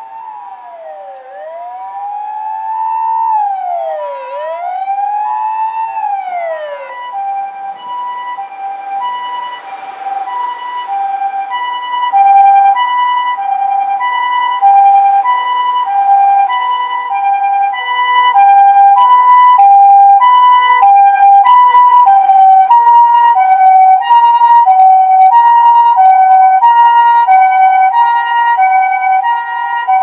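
Nissan NV350 Caravan ambulance's Osaka Siren electronic siren, first sweeping up and down in a wail, then about seven seconds in switching to the Japanese two-tone hi-lo ambulance call. It grows louder as the ambulance approaches.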